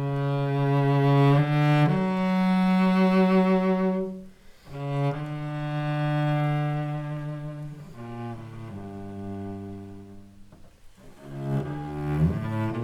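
Solo cello playing slow, sustained bowed notes, each held for a second or two, with short breaks between phrases about four and a half and eleven seconds in.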